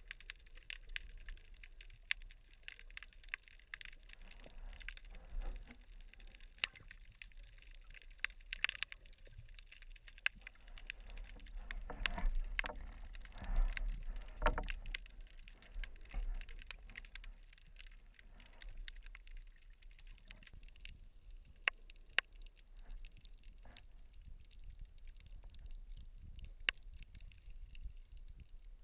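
Underwater sound around a swimming spearfisher: water swishing and rumbling, with many scattered sharp clicks and crackles. It swells for a few seconds around the middle.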